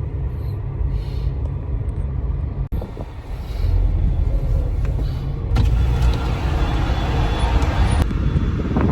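Car driving slowly, heard from inside the cabin: a steady low engine and road rumble that drops out for a moment a little under three seconds in, with more tyre and road hiss in the second half.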